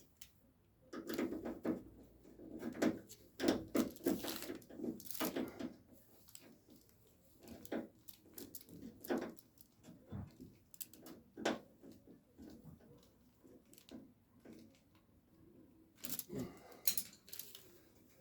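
Small metal clicks, scrapes and rattles of hand work inside a 1968 Camaro door, fitting the small screw that holds the latch rod to the door. Clusters of sharp clicks come in the first few seconds and again near the end, with scattered single clicks between.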